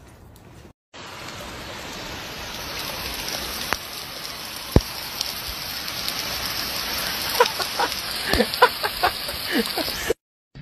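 A steady rushing noise, growing slowly louder, with a few sharp clicks. In the last few seconds comes a string of short voice-like calls, each falling in pitch.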